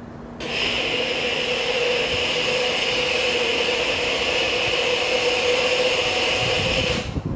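A loud, steady whirring machine noise with a whine in it, switched on abruptly about half a second in and cut off abruptly near the end.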